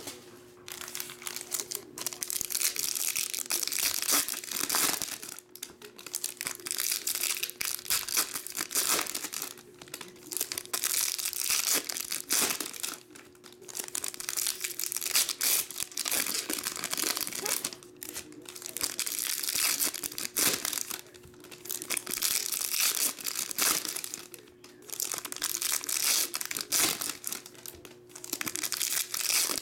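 Foil trading-card packs being torn open and crinkled by hand, with cards handled, in repeated bouts of rustling broken by short pauses.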